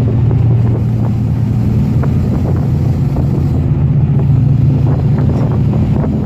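Boat diesel engines running steadily with a low hum, their pitch shifting slightly about halfway through, with wind buffeting the microphone.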